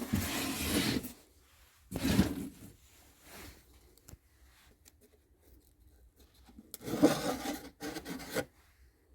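Wood scraping and rubbing against wood as the wooden nest box is handled, in three short bursts with quiet gaps between.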